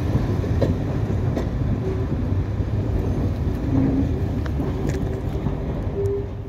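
Diesel multiple unit moving off, its underfloor diesel engines making a steady low rumble, with a faint steady whine over it.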